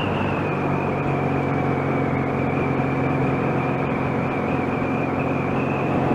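Motorcycle engine running at a steady cruise, heard from the rider's seat.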